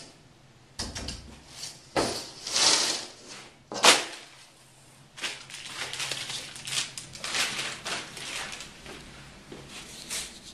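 Several sharp knocks in the first four seconds, the loudest just before four seconds, followed by irregular scraping and rustling strokes.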